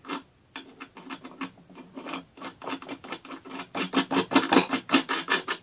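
A nut spun by hand down a threaded bolt: a quick run of short rasping scrapes, several a second, louder over the last couple of seconds.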